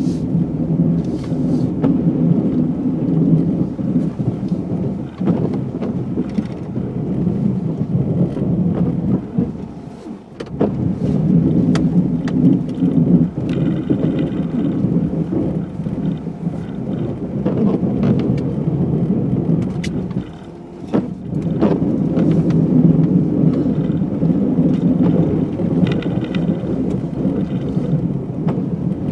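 2016 GMC Sierra pickup plowing snow: a steady low rumble from the truck and plow, with scattered knocks. The rumble drops off briefly twice.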